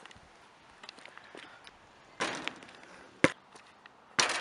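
A basketball in play on pavement. There is one sharp thud about three seconds in, then a longer, noisier hit near the end as a shot reaches the hoop.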